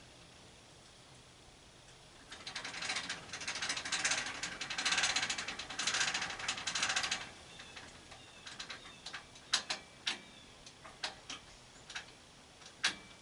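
A ratcheting mechanism clicking rapidly for about five seconds, then a dozen or so separate sharp clicks and knocks.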